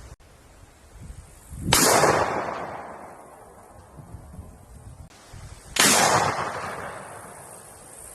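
Two single gunshots about four seconds apart, each a sharp report followed by a long echoing tail that dies away over a couple of seconds.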